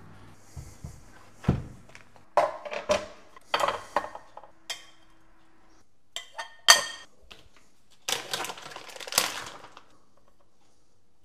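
A metal serving spoon clinking and scraping against a ceramic baking dish and plate as roasted vegetables are served, in a string of separate clatters. The sharpest clink comes a little past the middle, and a longer scrape follows near the end.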